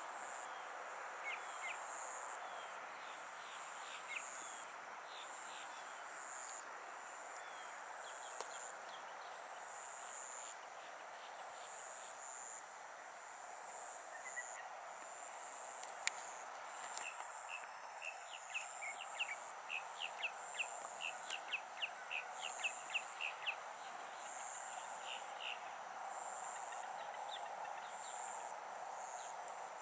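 Outdoor ambience: insects buzzing in a high, pulsing drone over a faint steady hiss. A bird gives scattered sharp chips, then a rapid run of them, about three a second, past the middle.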